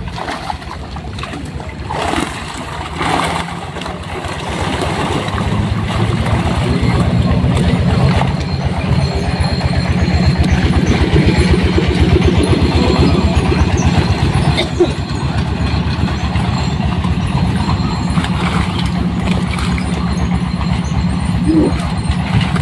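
A small engine runs steadily with a rapid, even beat, getting louder over the first several seconds and then holding level.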